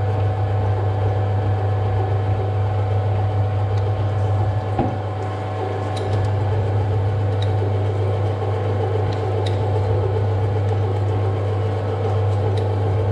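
Metal lathe running with a steady motor hum while a twist drill in the tailstock chuck bores into the spinning metal workpiece, with a few faint ticks in the middle.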